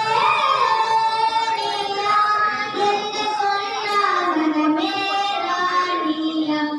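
A high voice singing a slow devotional song in long, held notes that bend and glide in pitch.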